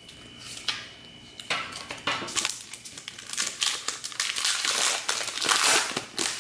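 Foil wrapper of a Pokémon trading card booster pack crinkling and crackling as it is handled and opened by hand. It is a string of crackly rustles that starts about a second and a half in and grows busier toward the end.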